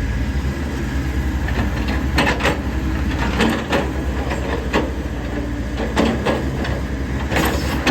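Komatsu PC70 excavator's diesel engine running steadily, with short knocks or hisses standing out every second or so.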